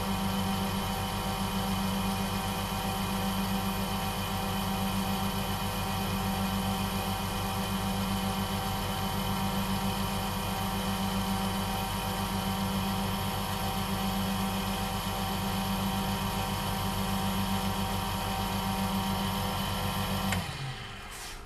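Small wood lathe running steadily with a pen blank on its mandrel, a constant motor hum with a whine above it. It is switched off about twenty seconds in and the hum dies away.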